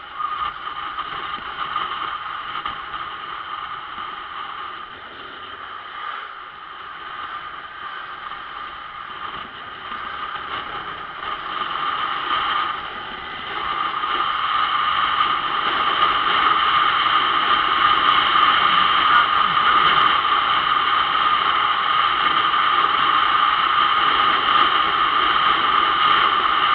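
Steady riding noise from a motorcycle on the move: wind rushing over the mounted camera together with engine and road noise, getting louder about halfway through.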